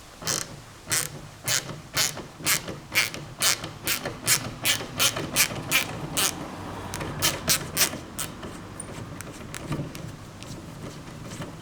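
Hand ratchet clicking as it turns out the screws of the table's leg brackets: a regular run of sharp clicks, about two a second, that trails off about two-thirds of the way through.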